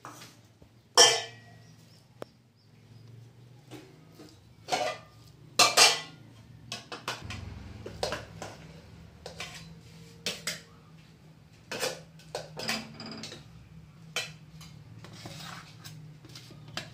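Clinks and knocks of a brass plate and steel bowls, with the scraping of fingers mixing rice on the plate: a dozen or so sharp separate clinks, the loudest about a second in. A low steady hum runs underneath.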